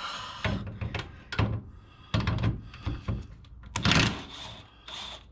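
Irregular clunks and knocks of hand tools at work on a sway bar bolt, several sharp hits spread unevenly.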